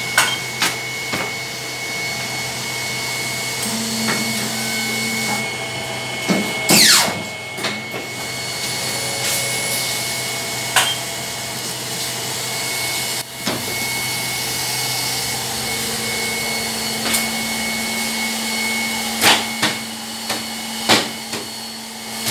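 Nagai 80 NCDT paper cutter running: a steady motor and blower hum, with a lower tone joining in now and then. Sharp clacks and knocks from its mechanism come every few seconds, and a falling whine sounds about seven seconds in.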